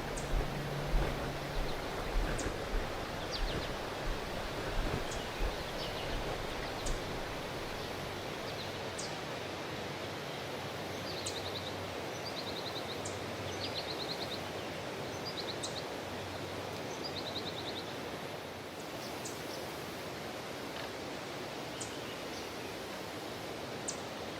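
Outdoor ambience: a steady bed of natural noise, with small birds calling in short, rapid high trills through the middle. Low thumps sound in the first few seconds.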